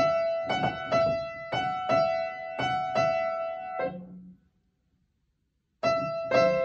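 Upright piano playing a train melody by ear: a quick figure of repeated high notes over chords that stops about four seconds in. After a short gap, two more chords are struck near the end.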